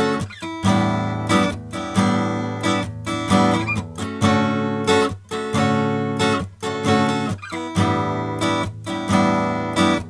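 Acoustic guitar strumming chords in a steady rhythm, recorded through a Sound Skulptor MP573 microphone preamp.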